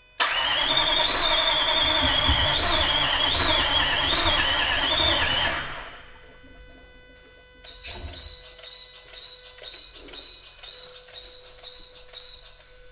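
2010 Range Rover Sport's TDV8 diesel V8 cranking over on the starter motor for about five and a half seconds without firing, all but one injector unplugged, with a wavering high whine over the cranking. The engine is suspected of having one or more cylinders low on compression. A much quieter ticking, about two a second, follows.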